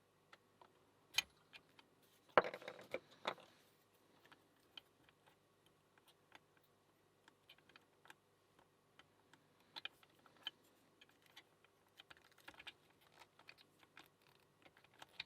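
Faint small metallic clicks and scrapes of a lock pick probing the pins of a Kwikset Smartkey lock under tension, with a brief louder rattle of clicks about two and a half seconds in.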